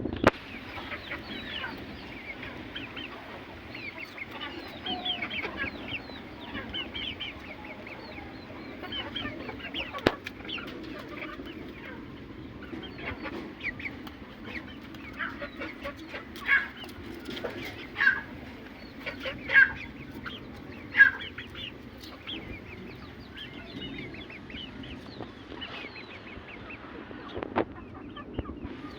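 Aseel chickens clucking and calling, with many short calls and four louder ones about a second and a half apart past the middle.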